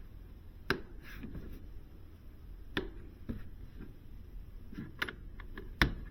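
A handful of sharp, irregular clicks and knocks from hands working on the engine air filter housing, the loudest one near the end, over a faint low hum.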